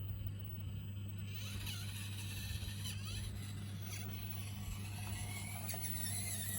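Axial SCX24 micro RC crawler's small electric motor and gears whining, rising and falling in pitch with the throttle, over a steady low hum.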